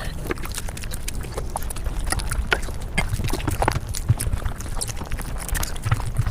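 Mukbang eating sounds sped up to five times speed: chewing, crunching and mouth smacks run together into a fast, dense stream of clicks and crackles over a low rumble.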